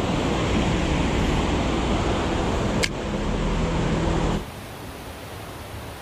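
Steady rushing of a mountain creek, loud and full with a deep rumble underneath. There is a single sharp click about three seconds in. About four and a half seconds in, the rush drops suddenly to a quieter, thinner hiss.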